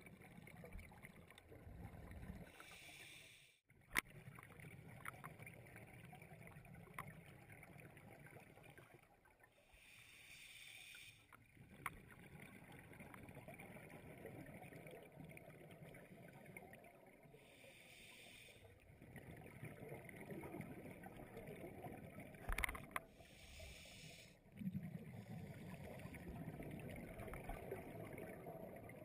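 Scuba breathing heard underwater: a faint regulator hiss on each inhalation, four times, alternating with the low rumble of exhaled bubbles. A sharp click sounds about four seconds in.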